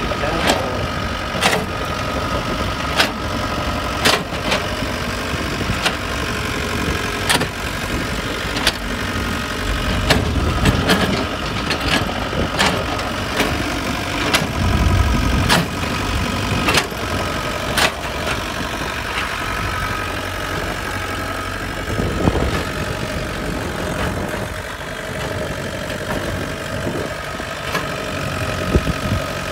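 IHI mini excavator's diesel engine running steadily as it digs, with repeated sharp knocks and clanks from the bucket and arm scraping up soil and stones.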